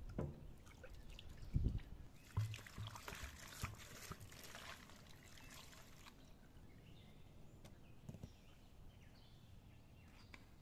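Water poured from a clay jug splashing and trickling over vegetables in a basket for about three seconds, after a couple of dull thumps.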